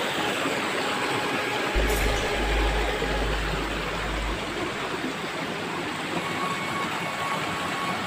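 Mountain stream rushing and splashing over rocks, heard as a steady hiss of water. A low rumble joins it for a couple of seconds about two seconds in.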